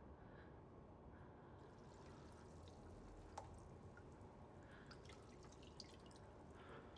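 Near silence: faint room tone with a few soft ticks, the sharpest about halfway through.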